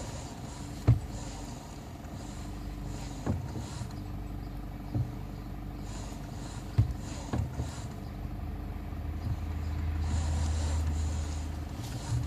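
A vehicle running with a steady low drone, broken by a handful of sharp, irregular knocks (about a second in, then near three, five and seven seconds). A low rumble swells and fades near the end.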